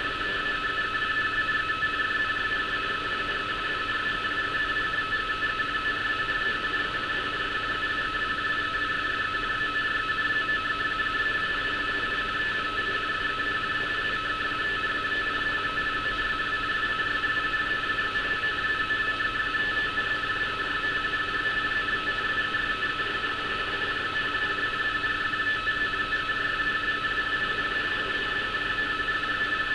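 Radioteletype (RTTY) signal from an HF shortwave receiver's speaker: a continuous two-tone warble as the transmission shifts rapidly between two close pitches, over steady band hiss. It is a navigational warning broadcast being received and decoded.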